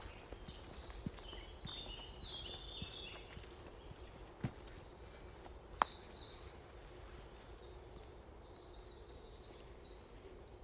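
Woodland birdsong: small birds singing quick, high, repeated phrases, with faint footsteps in the first half and one sharp click about six seconds in.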